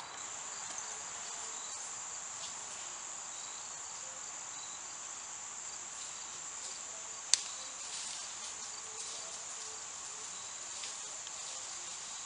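Steady high-pitched chirring of insects, with one sharp click about seven seconds in.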